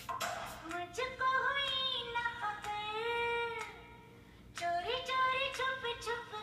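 A high singing voice holds long, sliding notes in two phrases, with a short pause near the middle.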